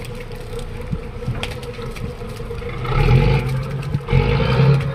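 Fishing trawler's inboard engine running steadily, with a few short knocks on deck. It grows louder about three seconds in, dips briefly near four seconds, then picks up again.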